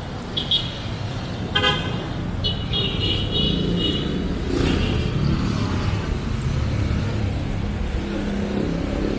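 Street traffic with several vehicle horn toots over a steady low rumble of engines: short beeps near the start, a longer toot about three seconds in, and another shortly after.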